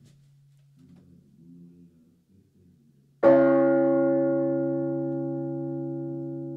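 A large bronze church bell, the 3200 kg Urban bell tuned to about C-sharp, is struck once a little over three seconds in and rings out with a slow decay. Before the strike, the low hum of the bell is still faintly sounding.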